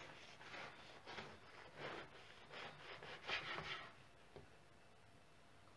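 Long bread knife sawing through a baked cozonac (sweet bread loaf) on a wooden board: a run of soft, scratchy back-and-forth strokes through the crust and crumb that stop about four seconds in.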